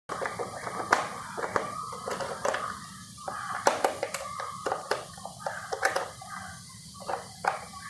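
Small screwdriver loosening the screws on a radio's plastic back cover: scratchy scraping and handling noise with irregular sharp clicks.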